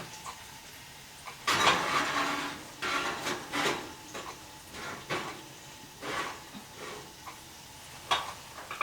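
Kitchen clatter of a roasting pan being handled and slid into an oven: a long scrape about a second and a half in, then a string of shorter knocks and scrapes.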